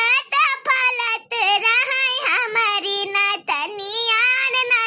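A high-pitched cartoon voice singing a Bhojpuri song solo, in long held and gliding notes with short breaks between phrases.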